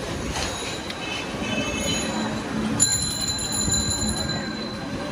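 Steady street background noise with a high ringing tone that starts abruptly about three seconds in and fades after about a second and a half.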